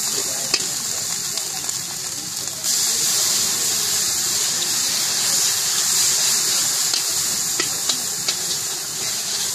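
Hot oil sizzling steadily in an iron karahi as battered pieces deep-fry, with a few small pops. The sizzle grows louder about three seconds in.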